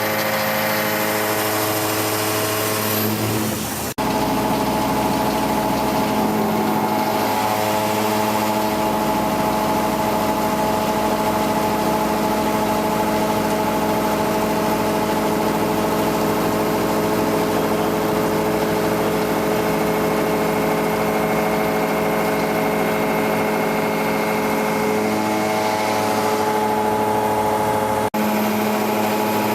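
Kinetic K4000 CNC machine milling, its spindle and cutter running with a steady mechanical hum made of several held tones. The sound shifts abruptly about four seconds in and again near the end.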